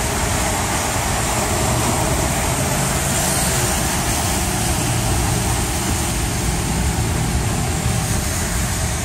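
Steady road noise heard from inside a moving car: a low engine and road rumble with tyres hissing on rain-soaked pavement.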